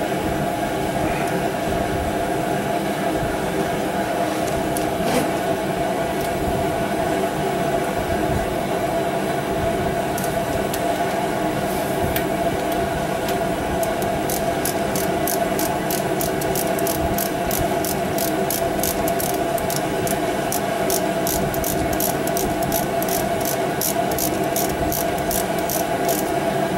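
A steady mechanical hum with hiss and several held tones. About halfway through, a run of light high ticks begins, two or three a second.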